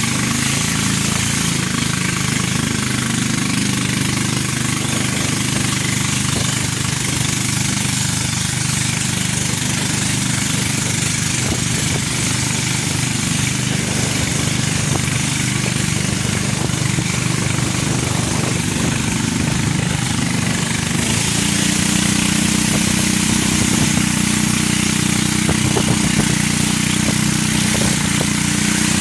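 Small boat engine running steadily under way over a constant hiss. About twenty seconds in, its note rises a little and gets louder.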